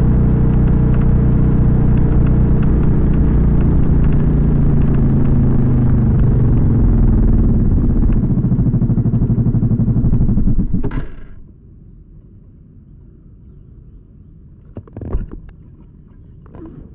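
Suzuki Skydrive 125 scooter's single-cylinder carburetted engine running steadily, heard with its modified air filter box, which is meant to cure the growling 'ngorok' intake noise. Near the end its beat slows and it shuts off about eleven seconds in, followed by a few light clicks and a knock.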